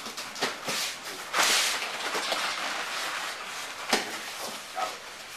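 Two fighters grappling against a chain-link cage wall: scuffling and bodies pressing on the fence, with several sharp knocks early on and again near the end, and a longer burst of noise about a second and a half in.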